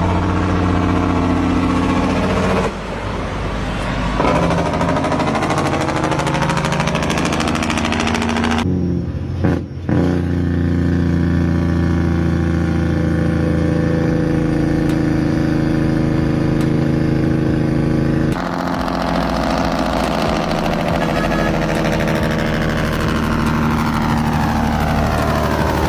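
Heavy semi-truck diesel engines in several spliced clips, the engine pitch rising and falling as they rev and slow. There are abrupt cuts between clips about a third of the way in and again about two-thirds through.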